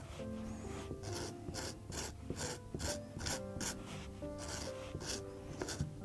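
Knife blade scraping the mouldy rind off the top of a wheel of cheese in quick repeated strokes, about three a second, over quiet background music.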